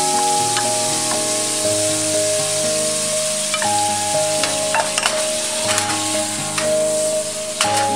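Food sizzling as it fries in a pan, with a few sharp clicks of a utensil against the pan. Under it runs background music of held tones that change every second or two.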